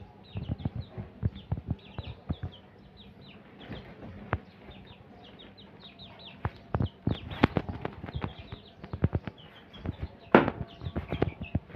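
Young chickens peeping in short, high chirps that slide downward, repeated throughout, over irregular sharp taps and knocks, with one louder knock about ten seconds in.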